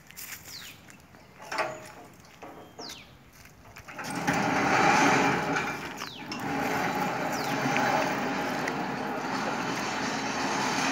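A motor vehicle's engine running close by, coming in loud about four seconds in and staying steady. Before it, a few short falling whistles.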